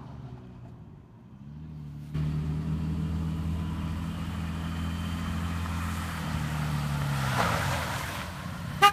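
2008 Toyota FJ Cruiser's 4.0-litre V6 running as the truck drives through snow. The engine gets suddenly louder about two seconds in, holds steady, then drops in pitch with a short hiss as the truck comes by near the end. A brief loud blip sounds right at the close.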